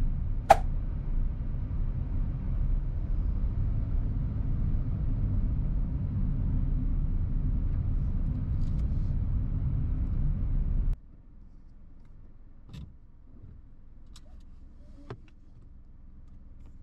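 Steady low road and engine rumble inside a moving car's cabin, with one sharp click about half a second in. About eleven seconds in it cuts off abruptly to a much quieter low outdoor hum with a few faint ticks.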